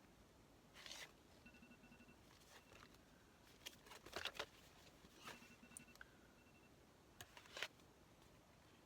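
Quiet handling of paper and craft tools: a few soft rustles and taps about a second in, around four seconds in and near the end. A faint electronic tone pattern repeats about every four seconds underneath.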